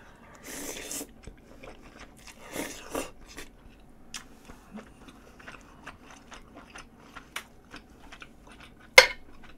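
A person chewing a mouthful of pollock-roe spaghetti close to the microphone: a rushing slurp of noodles in the first second, a second rush a few seconds in, many small mouth clicks and smacks, and one sharp click near the end.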